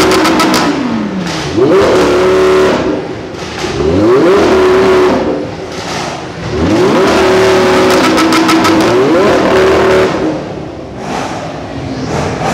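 Supercar engine revved hard several times, each rev rising quickly and held at a steady high pitch before falling away; the last and longest is held for about three seconds before it drops.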